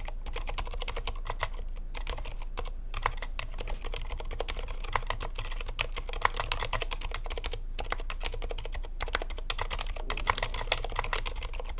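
Continuous fast typing on a Tokyo60 V4 keyboard with stock Gateron Aliaz Silent 60g silent tactile switches, a dense run of soft, damped keystrokes with a few brief pauses.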